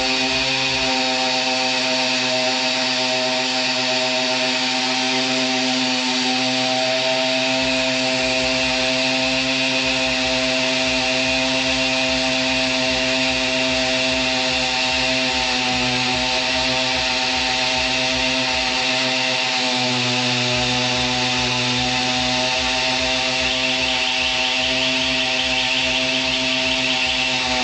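Simson Schwalbe moped's 50 cc single-cylinder two-stroke engine running hard and steadily, its buzzing pitch holding almost constant.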